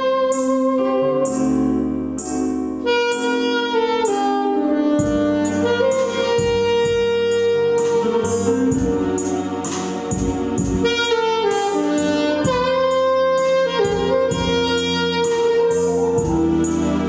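Saxophone playing a jazz melody of held notes over an accompaniment with a steady beat, which gets busier about five seconds in.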